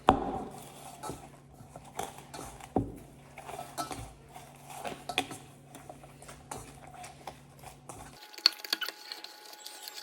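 A utensil knocking and scraping irregularly against a mixing bowl as oil is mixed into naan dough, with one sharp knock at the start louder than the rest.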